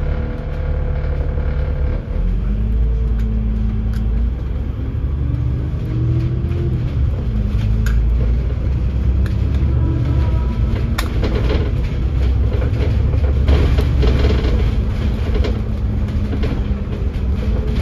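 Dennis Enviro500 MMC double-decker bus running, heard from on board: a steady low engine and road rumble, with the engine note rising and falling. Clicks and rattles join in during the second half.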